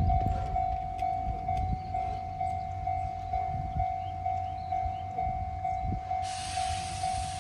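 Level-crossing warning bell ringing steadily at about two rings a second, over the low rumble of a steam train, the C57 180 locomotive with its coaches. About six seconds in, a loud steady hiss of steam starts.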